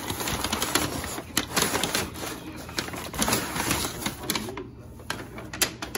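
Kraft-paper bag and the plastic bag inside it rustling and crinkling as they are pulled open by hand, with many sharp crackles.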